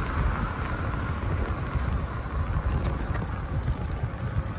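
Wind rumbling over the microphone, with road noise, while riding an electric bicycle: a steady low rush with a few faint ticks.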